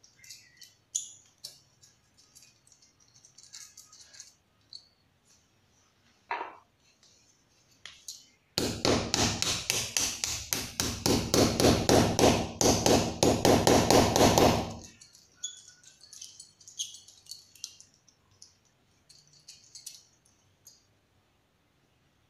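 Small hammer tapping a steel dynabolt expansion anchor into a drilled hole in a masonry wall: a quick, even run of light metallic strikes lasting about six seconds, starting a little past the middle. Before and after it come small clicks of the bolt being handled against the wall.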